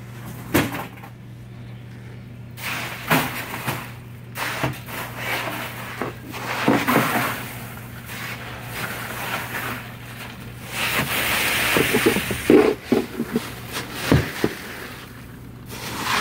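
Metal clunks and knocks from a stainless-steel Follett ice cart and bin as the cart is handled, with nugget ice scraping and tumbling against the metal, over a steady machine hum.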